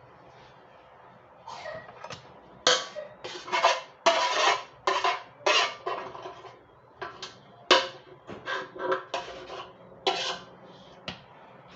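Kitchen utensils scraping and clattering in a quick run of short strokes, starting about a second and a half in: a spoon working cooked onion in a sieve to strain out the sugar-and-onion cough syrup.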